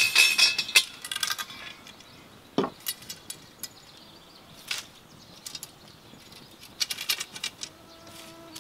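Metal clinking and rattling as a cauldron and the steel rods of a campfire tripod are handled. A dense cluster of clinks at the start, then scattered light clinks through the rest.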